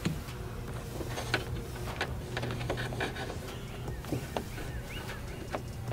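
Scattered small clicks and rustles of a cable being handled and pressed into a car liftgate's plastic trim, over a low steady hum.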